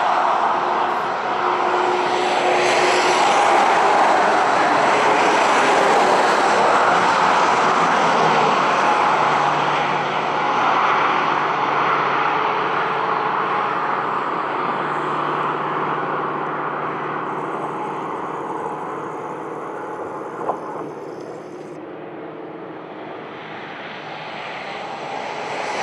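A steady engine drone that fades about twenty seconds in and swells again near the end, with one sharp click just before it fades.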